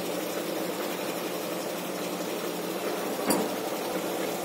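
A steady low hum, with one short sharp click about three seconds in.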